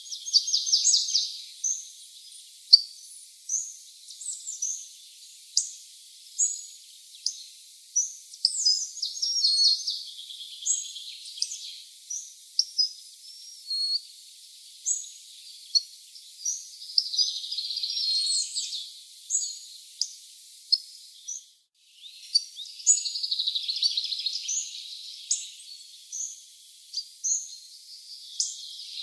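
Hawfinches calling: short, sharp, high call notes repeated every half second or so, with several stretches of denser twittering a second or two long. The sound breaks off briefly about two-thirds of the way through.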